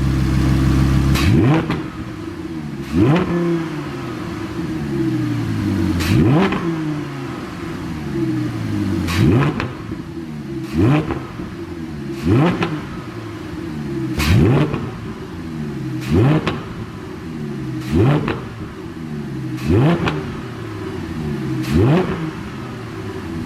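Audi R8 V10 Plus's 5.2-litre V10 being blipped in repeated free revs, about eleven times, each quick rise followed by the revs falling back toward idle. A pop-and-crackle exhaust tune makes pops on each overrun.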